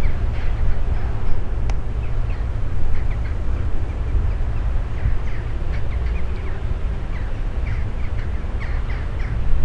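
A group of birds calling over and over in short, downward-sliding calls, thickest from about five seconds in, over a steady low rumble.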